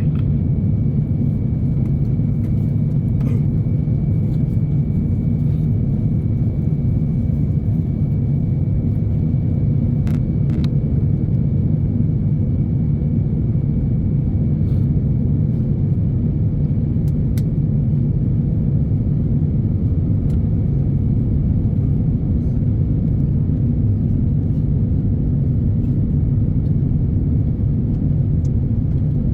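Steady low rumble of a jet airliner's cabin in flight, the drone of engines and airflow, with a faint thin high tone running through the first two-thirds.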